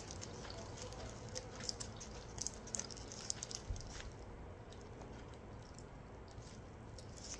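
Faint chewing of a bite of onigiri wrapped in crisp nori, with scattered small crackles over the first four seconds or so, then quieter.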